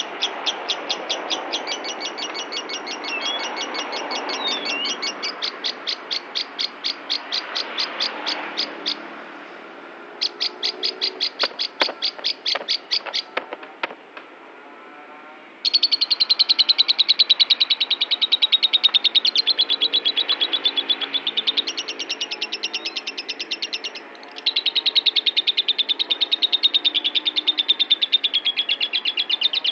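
Lovebird singing a long, fast chatter of sharp, evenly repeated chirps, several a second. The chatter breaks off about nine seconds in, returns briefly, then starts again about halfway through in a louder run that goes on with only a short break.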